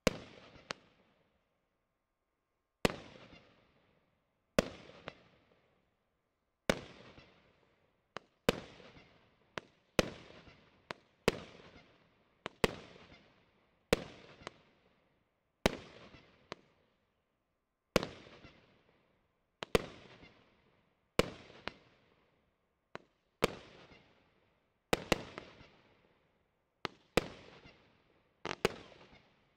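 A 25-shot, 30 mm consumer fireworks cake (Triplex TXB668 'Sunday') firing single shots one after another, about one every one to two seconds, each a sharp bang trailing off in a fading tail, with the odd pair of shots close together.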